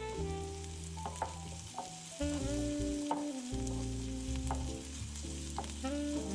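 Leafy greens sizzling as they sauté in a pan, with a few light clicks, under background music of held notes and a bass line.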